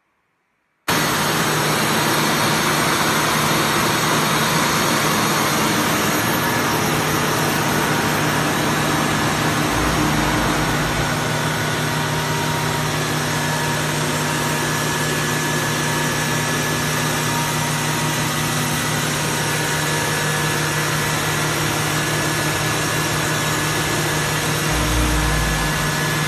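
A 7.5 kW (10 hp) belt-driven screw air compressor running on test, a loud steady whirring noise with a constant hum that cuts in suddenly about a second in. Two brief low rumbles come about ten seconds in and near the end.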